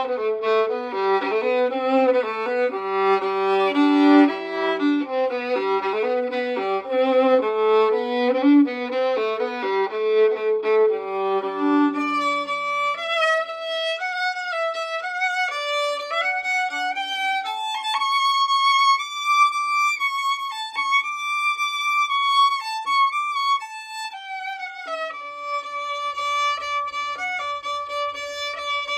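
Solo violin played with a bow: a quick run of low notes, then from about halfway through a higher melody with longer held notes.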